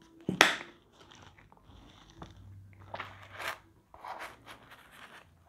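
Thin pizza crust crunching and crackling close to a clip-on microphone as a slice is torn off and eaten: one sharp crackle about half a second in, then softer crunches near the middle.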